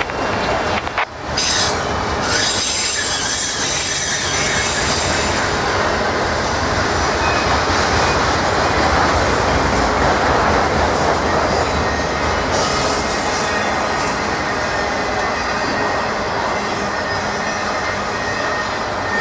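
Freight train of autorack cars rolling past close by: the steady rumble and clatter of steel wheels on rail, with thin, high wheel squeal coming and going through the middle.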